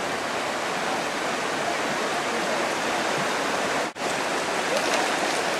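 Shallow river rushing over rocks, a steady dense hiss of flowing water, with a brief break about four seconds in.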